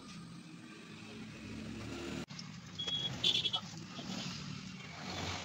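A motor running steadily with a rough low hum. About three seconds in come a few short high-pitched beeps.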